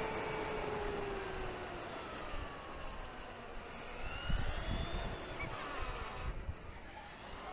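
Electric motor whine from an RC car, falling in pitch as it slows, then rising several times as the throttle is applied again, over a rumble from the drivetrain and tyres.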